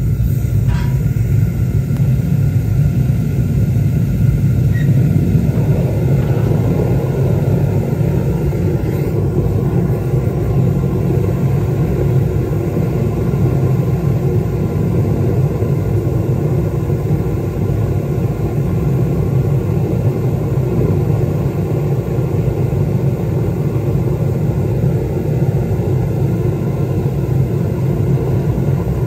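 Home-made foundry furnace's burner firing, a loud, steady low rumble of flame while it heats a crucible of copper to melting.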